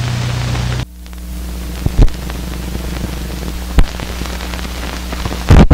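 Old film soundtrack running over blank leader: a steady hiss with a low hum and crackle, its tone changing abruptly about a second in. Sharp loud pops come near two seconds, near four, and a double pop near the end.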